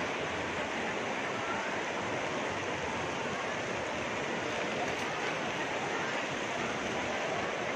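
Steady wash of crowd murmur and background noise filling a large shopping-mall atrium, with no single voice standing out.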